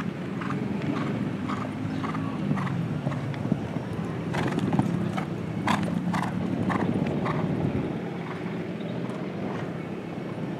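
Horse cantering on sand arena footing, its hoofbeats coming as short strikes about twice a second, over a steady low hum.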